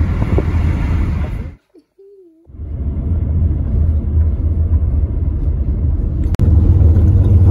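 Road noise inside a moving car: a steady low rumble that drops out for under a second about two seconds in, returns, and steps up louder near the end.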